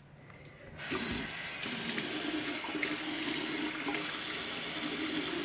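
Bathroom sink faucet turned on about a second in, water running steadily into the basin.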